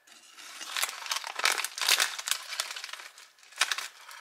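Crackers being handled: dry crinkling and crackling from plastic cracker packaging and crackers shifting against a glass jar, in irregular bursts with a sharper crackle about three and a half seconds in.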